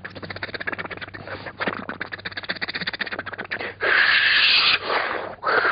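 A mimicry artist imitating a dinosaur with the voice: a fast rattling growl that builds in loudness, then two loud rasping screeches, the first about four seconds in and the second near the end.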